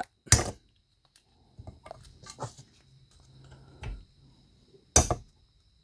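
Small metal clicks and ticks as snap-ring pliers and a pick work the retaining clip out of a driveshaft U-joint bearing cap, with a sharp click near the start and a louder one about five seconds in.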